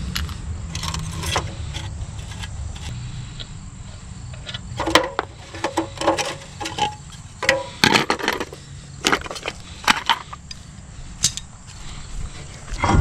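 Sharp metallic clinks and clatters of lug nuts and a wrench, coming thick and fast through the second half as the rear wheel of a pickup is taken off. A low rumble fades out over the first few seconds.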